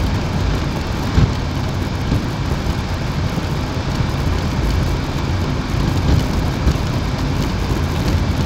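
Car driving over a cobblestone street, heard from inside the cabin: a steady low rumble of tyres on the stones over the engine's hum, with a sharp knock about a second in.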